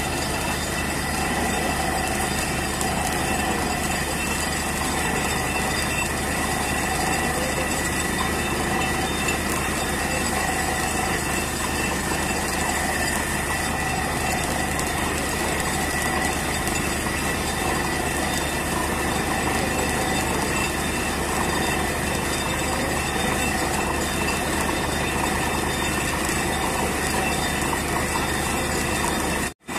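Borewell drilling rig running steadily while drilling: a continuous, even mechanical din with a few constant tones, as water and air blow out of the borehole around the drill pipe. It breaks off for an instant near the end.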